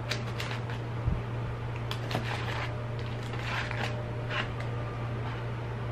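Eating sounds: a fork scraping and poking at food in a paper-lined cardboard fried-chicken box, heard as short scattered scrapes and rustles, with chewing, over a steady low hum.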